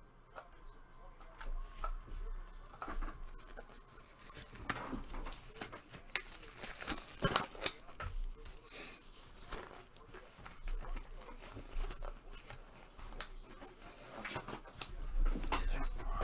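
Handling noises: scattered clicks, rustling and crinkling of packaging, with a few sharper snaps about six to seven and a half seconds in.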